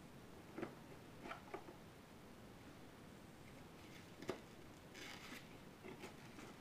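Faint handling of baseball trading cards: a few light clicks and taps, a sharper tick a little past four seconds, and a short rustle around five seconds.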